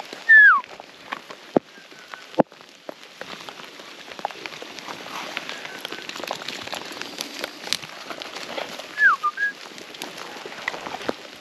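A loud, clear whistle sliding down in pitch just after the start, and a shorter falling whistle with a quick second note about nine seconds in. Between them come two sharp clicks and a soft, steady rustling hiss.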